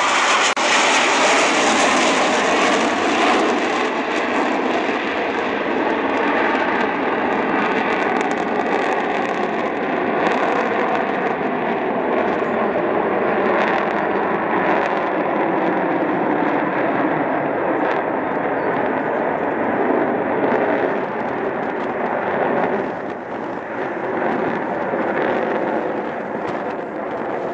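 Four Blue Angels F/A-18 Hornet jets flying over in formation: a loud, steady jet roar that swells in just before the start. A faint whine slides slowly down in pitch through the middle, and the roar eases off slightly near the end.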